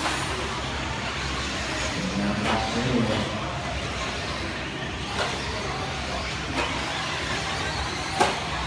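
Brushless electric 1/10 stadium trucks running on an indoor dirt track: a steady hiss of motors and tyres in a large hall. Three sharp clacks cut through, the loudest near the end.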